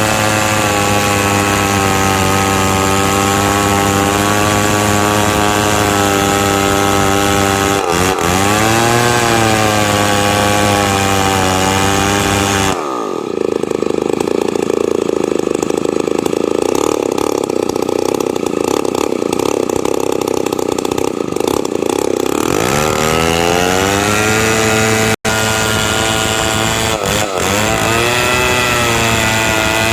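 A two-stroke chainsaw runs at high revs. Its pitch dips briefly about eight seconds in. Around thirteen seconds it drops to a lower, duller sound for about ten seconds, then climbs back to full revs.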